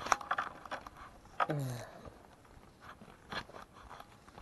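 Fishing rod and spinning reel being handled: scattered clicks and scrapes, with a short sound falling in pitch about a second and a half in.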